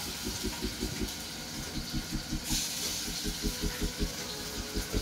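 Marinated chicken pieces sizzling in hot oil as they are laid into a shallow frying pan. Under the hiss runs a low rhythmic pulsing of about five beats a second.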